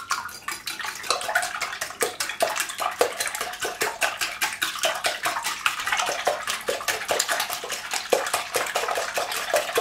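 Wire whisk beating raw eggs in a glass bowl: rapid, steady strokes, several a second, with the wires clinking against the glass and the eggs sloshing.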